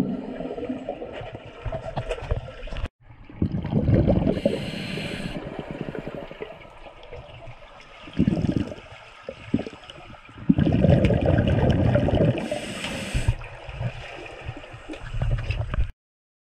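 Scuba sounds heard underwater: rushing bubble bursts of divers' exhalations alternating with the hiss of a regulator on the inhale, in uneven bursts every few seconds. The sound breaks off for a moment about three seconds in and stops shortly before the end.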